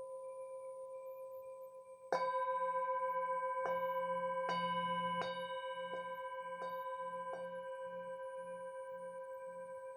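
Tibetan singing bowl ringing with a steady hum, struck sharply about two seconds in and then tapped several more times over the next five seconds. Each tap renews the ring, which wavers in a slow wobble and then fades gently.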